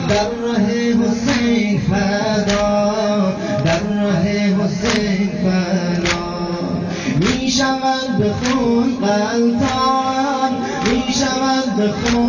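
A voice singing a rhythmic mourning chant (noha), with sinezani chest-beating: sharp strikes in time, about one every 1.2 seconds.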